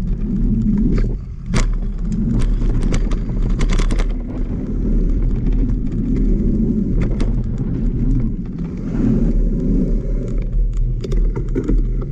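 Wind buffeting the camera's microphone during a mountain bike ride, a steady low rumble, with scattered sharp clicks and rattles from the bike rolling over the trail, busiest in the first few seconds and again near the end.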